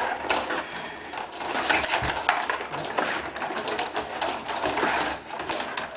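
Rod-operated table hockey game in play: the rods sliding and twisting, and the plastic players, puck and boards clacking in a quick, irregular series of clicks and knocks.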